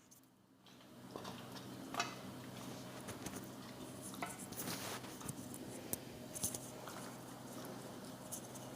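Faint kitchen handling sounds: a spoon stirring chicken in a cooking pot, with a few light clinks of utensil on metal, over a low steady hum.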